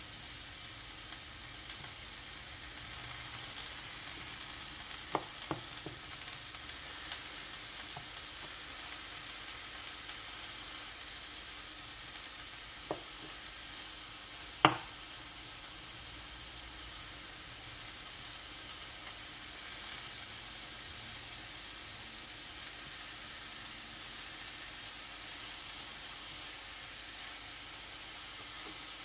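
Sliced onion frying in a pan over a gas flame: a steady sizzle with a few sharp pops, the loudest about halfway through.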